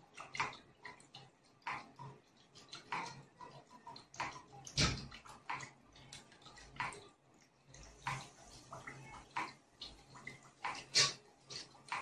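Water from a homemade water-pressure fountain model dripping and splashing into its tray in irregular drops and trickles, with one louder splash about five seconds in.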